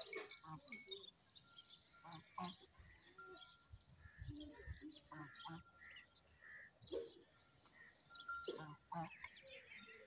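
Faint, high peeping and chirping that comes and goes in short calls, typical of young ducklings huddled under a brooding duck.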